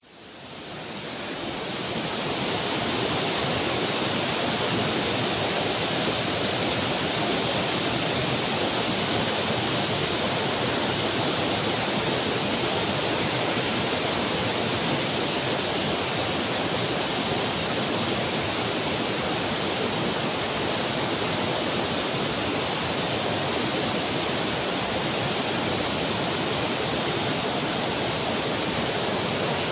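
Heavy downpour of rain: a dense, steady hiss with no separate drops standing out. It fades in over the first couple of seconds and then holds level.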